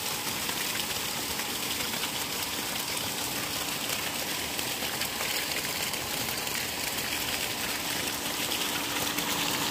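Water gushing at full, unbroken flow from the 2-inch discharge pipe of an electric centrifugal pump running on a bored tube well, with a faint steady hum.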